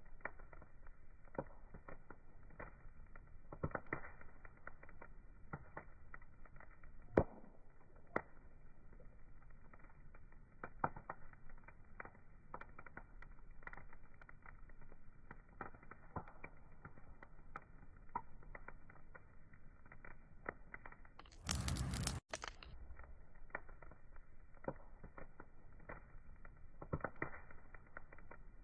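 Wood fire crackling, with irregular small snaps and pops over a faint, muffled hiss. About three-quarters of the way through, a short louder rush of hiss cuts in.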